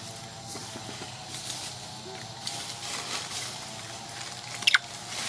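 Steady outdoor background hiss, then a long-tailed macaque's short, sharp high-pitched squeak near the end, the loudest sound.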